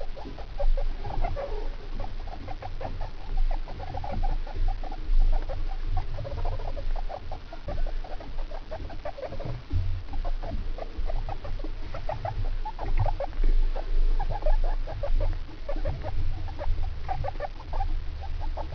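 Guinea pigs calling: short calls repeated several times a second, in runs with brief pauses.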